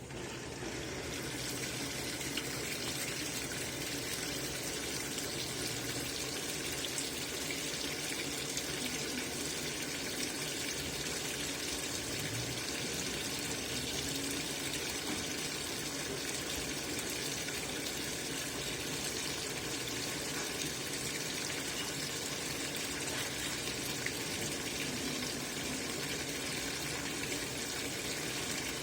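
LG 18 kg washing machine taking in water, a steady rush of water filling the drum at the start of its duvet cycle. It starts right at the beginning.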